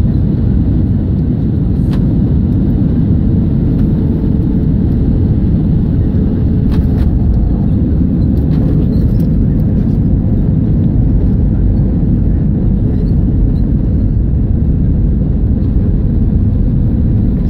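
Cabin noise of an Airbus A320-200 landing: a steady low rumble of engines and airflow through touchdown. It carries on as the wheels roll out on the runway with the spoilers raised.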